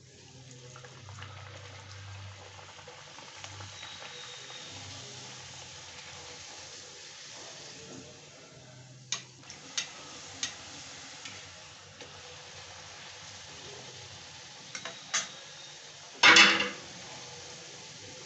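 Whole-wheat puri frying in hot oil in a kadhai: a steady sizzle, with a metal spatula clicking against the pan a few times and one loud clatter of metal on metal near the end.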